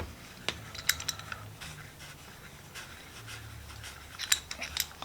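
Light metal clicks and scrapes from a small rusted vise part being worked loose by hand, a few at a time, with a quicker cluster near the end, over a faint low hum.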